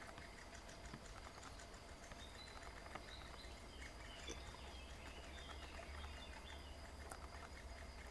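Faint high chirping of great spotted woodpecker nestlings begging from the nest hole while being fed, busiest a few seconds in, over a low steady rumble.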